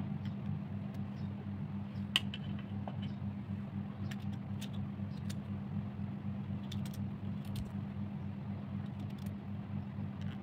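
Small clicks and snaps of a knife cutting a carrot into pieces held in the hand, scattered through, the sharpest about two seconds in. Under them runs a steady low hum.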